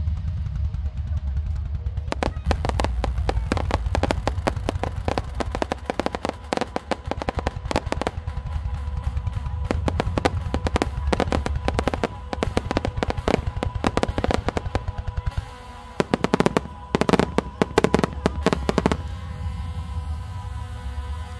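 Aerial fireworks shells bursting in a fast, dense barrage of bangs over steady background music. The bangs thin out briefly, then return as a short run of louder booms, and stop near the end, leaving the music.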